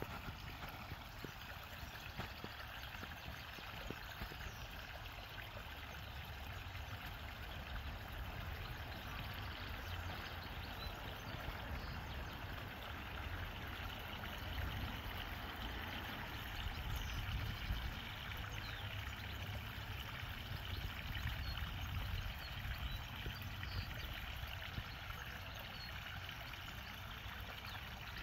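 Water trickling steadily, with a low rumble underneath.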